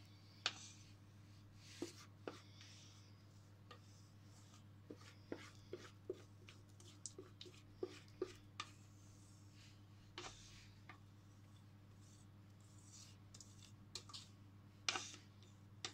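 Spatula scraping thick cake batter out of a metal mixing bowl into a lined baking pan: scattered faint scrapes and taps over a low steady hum.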